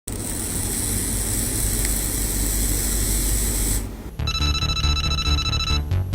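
A steady hiss with a low rumble for about four seconds, then electronic background music with a steady beat and high held tones starts.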